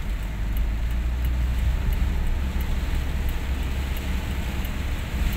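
Car driving on a wet road, heard from inside the cabin: a steady low rumble of engine and tyres with an even tyre hiss, and faint light ticks about twice a second.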